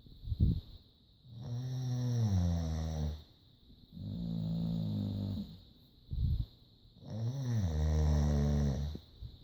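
A man and a boxer dog snoring side by side: three long, drawn-out snores a few seconds apart, with short sharp snorts in between.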